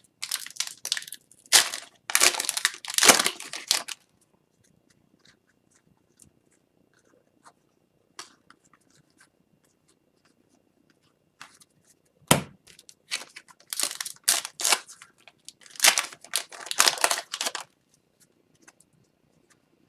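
Foil hockey card pack wrappers being torn open and crinkled by hand, in two spells: one in the first few seconds and a longer one from about the middle to near the end, quiet between.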